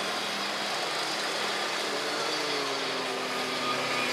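Steady street traffic noise with a motor vehicle engine running, its pitch shifting up and down a little past the middle.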